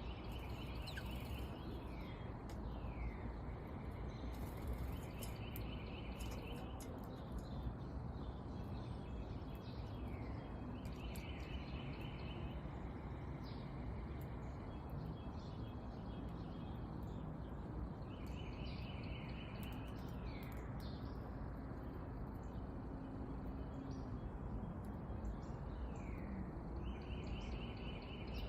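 A small songbird singing a short, fast trill about every six seconds, five times in all, with brief falling chip notes between the trills. Steady low background noise runs underneath.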